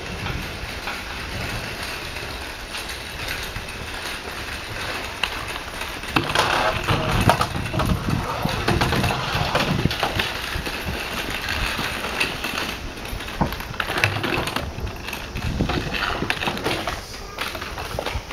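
Railway station ambience: a steady low hum with voices, growing busier with scattered clatter and knocks from about six seconds in.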